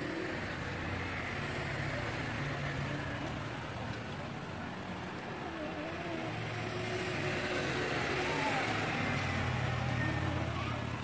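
Motor vehicle traffic going by: a low engine drone that swells and fades, loudest in the second half.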